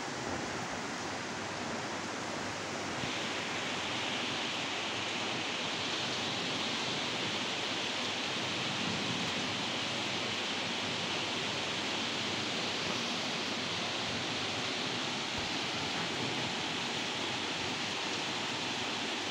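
Steady rainfall, a dense, even hiss; it grows a little stronger about three seconds in.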